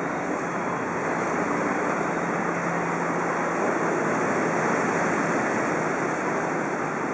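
Steady outdoor ambience of a beachfront road: a constant wash of noise that swells a little in the middle, with a faint low hum in the first few seconds.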